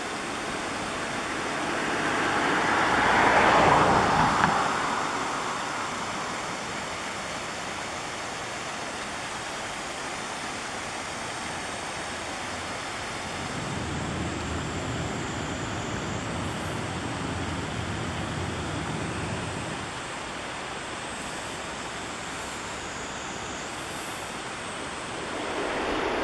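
Steady rushing of a shallow, stony river's current, with a louder swell of noise about three to four seconds in and a lower rumble from about fourteen to twenty seconds in.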